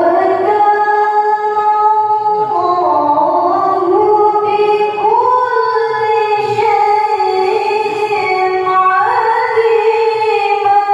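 A woman's melodic Quran recitation (tilawah) into a handheld microphone. It is one long phrase of held, ornamented notes that shifts pitch a few times.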